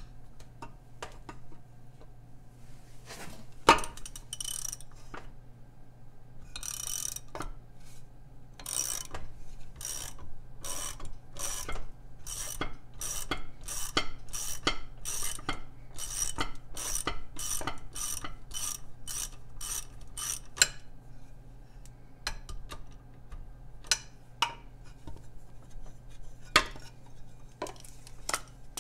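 Half-inch drive ratchet with a 5/8 socket turning the propeller nut on a Mercury 7.5 hp outboard's prop shaft: one sharp knock a few seconds in, then a long run of ratchet clicks, about two a second, for around twelve seconds, and a few scattered clicks near the end.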